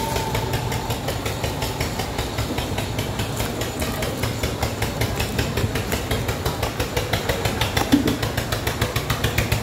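Small engine idling with a rapid, even putter. There is a short thump about eight seconds in.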